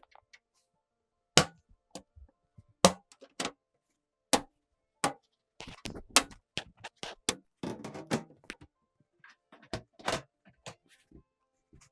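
Sharp plastic and metal clicks and knocks of PC parts being handled and snapped into place, one at a time at first and then a quicker run of small clicks and rattles about six seconds in.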